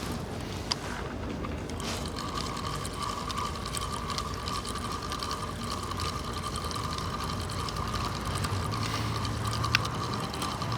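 Steady machine hum with a constant high whine over a background rush, and a lower hum joining about eight seconds in.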